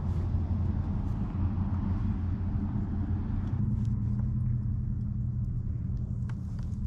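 An engine idling with a steady low rumble, its note shifting slightly about halfway through.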